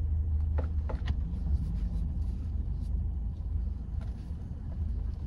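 Car running, heard from inside the cabin as a low steady rumble, with a few faint light ticks about half a second and a second in.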